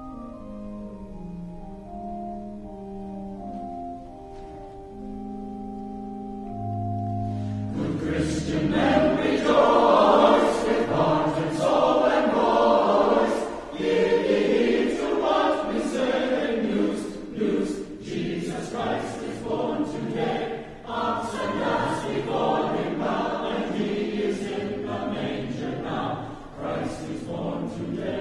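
A choir performing a Christmas choral piece. A soft passage of held chords gives way, about eight seconds in, to the full choir singing loudly.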